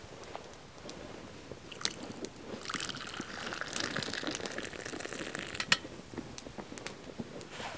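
Coffee poured from a pot into a wooden kuksa cup: a splashing, trickling stream that runs for about three seconds in the middle and stops with a sharp click. Scattered sharp clicks are heard around it.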